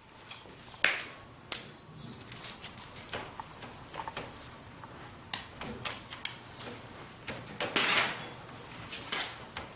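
A dog's claws clicking and tapping on a hard floor as it moves about, with a few sharper knocks about a second in and a brief scuffle about eight seconds in.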